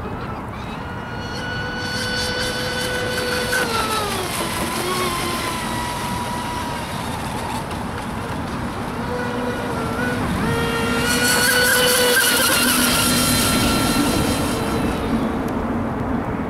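Triton RC speedboat's motor whining at speed on two passes: a steady high whine that drops in pitch about four seconds in, then comes back and builds, loudest about twelve seconds in with a hiss of spray, and fades near the end.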